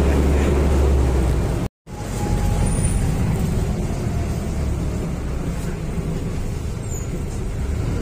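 Steady engine and road rumble inside a moving city bus. It cuts out completely for a moment just under two seconds in, then carries on.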